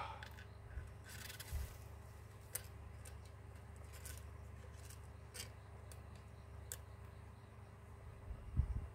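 Faint, scattered clicks and light taps as the plastic and glass parts of a Huawei P20 lite's replacement display and frame are handled and fitted together, with a soft low thump near the end.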